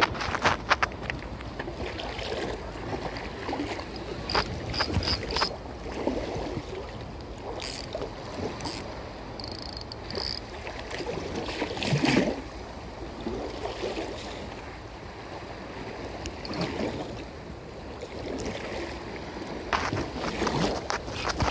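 Wind buffeting the microphone over the sound of small waves on the open sea, with scattered short clicks and knocks and a heavier thump about halfway through.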